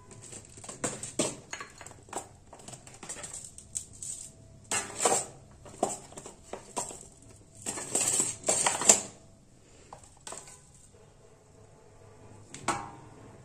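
Metal kitchen utensils clinking and clattering in irregular knocks. The busiest clatter comes about five seconds in and again around eight to nine seconds in.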